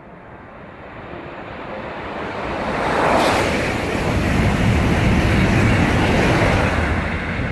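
SRT high-speed train passing through the station at about 280 km/h without stopping. A rush of air and rail noise builds to a loud peak with a sharp hiss about three seconds in, then a heavy low rumble as the cars go by, easing off near the end.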